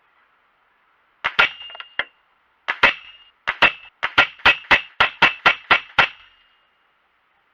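A run of about sixteen sharp clicks, each with a brief high ringing tone: a few scattered at first, then a steady series at about four a second.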